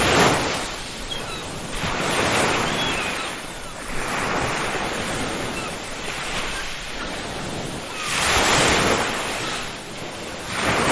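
Ocean waves washing onto a beach, the surf swelling and ebbing every few seconds, loudest in a big swell about eight seconds in and again at the end. A few faint, short seagull cries sound over the surf.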